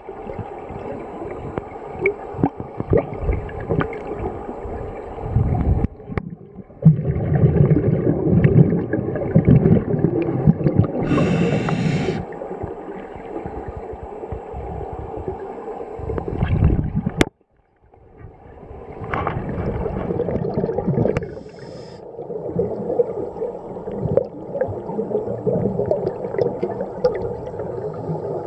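Underwater scuba recording: muffled rumbling and gurgling of regulator breathing and exhaust bubbles, swelling and fading, with a brief hiss about eleven seconds in and a short break a little past halfway.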